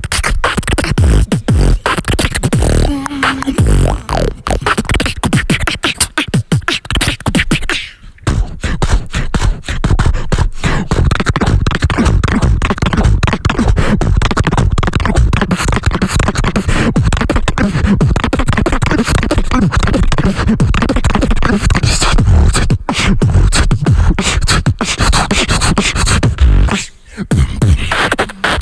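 Beatboxing into a handheld microphone, taken up by several beatboxers in turn: fast, dense drum-like rhythms of clicks and deep hits, with brief pauses about eight seconds in and near the end.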